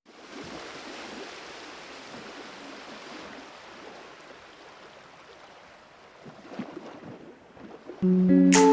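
Steady rushing noise that slowly fades, then music with plucked notes comes in sharply near the end.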